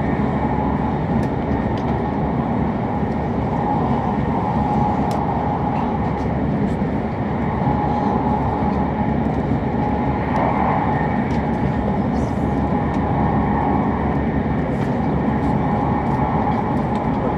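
Cabin running noise of an E7-series Hokuriku Shinkansen train at speed: a steady low rumble and rush of wheels and air, with a faint wavering hum above it.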